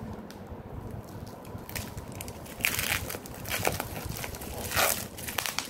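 Hands handling a cardboard product box and loose plastic shrink-wrap: soft rustling and small clicks, with two louder crinkling bursts, one about halfway through and one near the end.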